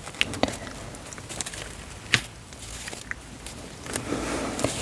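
A few soft, scattered clicks and taps over a faint rustle, close to the microphone.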